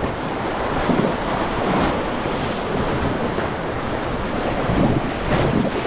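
Rushing white water of a river under a raft, a steady noisy wash with a few louder surges, with wind buffeting the microphone.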